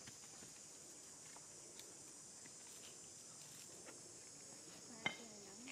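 Faint, steady high-pitched buzz of insects in the background. About five seconds in there is a sharp click, followed by a short wavering call near the end.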